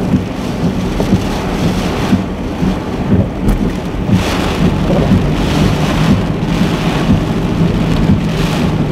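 Hurricane-force wind and heavy rain lashing a vehicle: a loud, steady rush with a deep rumble, swelling with gusts about halfway through and again near the end.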